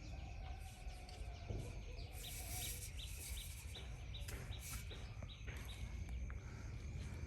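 A bird chirping: a run of short, high, evenly spaced chirps, about three a second, through the middle stretch, over a steady low rumble.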